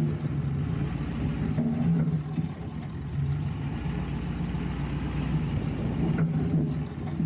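Lifted 4x4 off-road truck's engine running at low, steady revs as it crawls over a sandy dirt track, heard from under the chassis. The low hum eases slightly about two seconds in and again about six seconds in.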